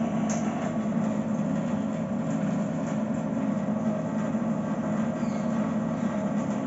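Reverse-osmosis water purifier's booster pump humming steadily as the unit runs.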